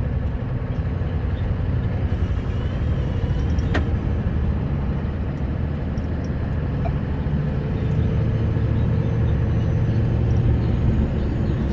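Scania R560 truck's V8 diesel engine and tyre noise heard from inside the cab: a steady low drone while driving, with a single sharp click about four seconds in.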